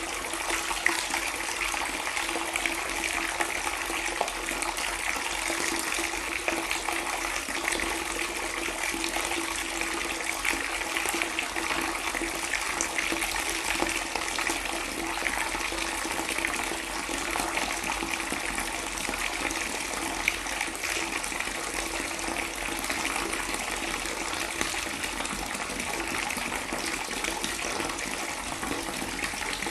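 Water pouring in a steady, unbroken stream.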